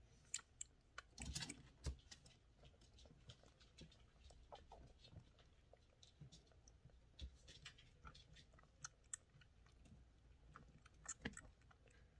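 Faint, irregular small clicks and smacks of a kitten suckling from a feeding bottle, with a slightly louder cluster about a second in.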